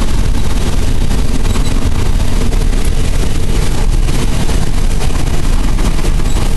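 1983 International 1460 combine running while harvesting soybeans: a loud, steady rumble of engine and threshing machinery.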